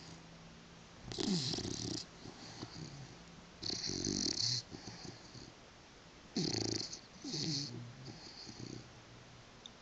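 British bulldog snoring in deep sleep: loud, rattling snores every two to three seconds, some with a falling pitch, and softer snuffling breaths between.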